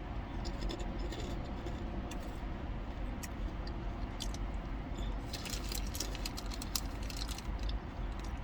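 Steady low hum of a car cabin with scattered light clicks and rattles of things being handled, which grow busier about five seconds in.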